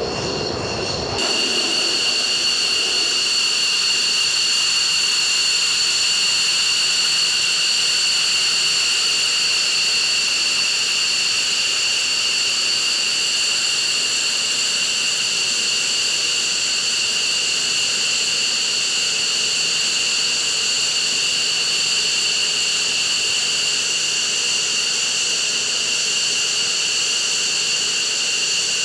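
F-15E Strike Eagle jet engines running on the ground at idle: a steady, high-pitched turbine whine over a loud hiss. In the first second a lower jet rumble cuts off abruptly as the whine begins.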